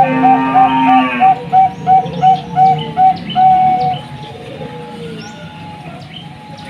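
Bangkok-type zebra dove (perkutut) cooing: a quick run of short, clipped coos, about three a second, ending in a longer drawn-out note, then softer cooing after about four seconds. A brief lower, buzzy call overlaps the first second, and small birds chirp faintly in the background.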